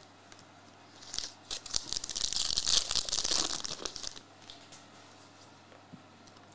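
Foil wrapper of a 2022 Panini Prizm football card pack being torn open and crinkled, from about a second in until about four seconds in.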